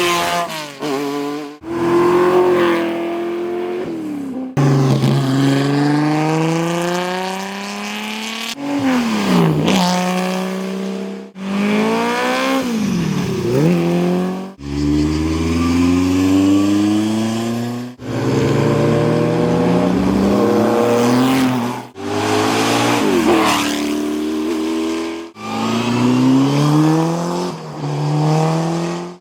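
Historic racing car engines accelerating hard, pitch climbing and dropping back at each upshift, with several cars passing at speed and their note falling as they go by. The sound cuts abruptly from one car to the next every few seconds.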